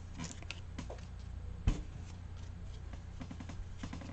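Baseball trading cards being handled and flipped through one by one, soft rustles and clicks of card stock, with a single sharp thump about one and a half seconds in.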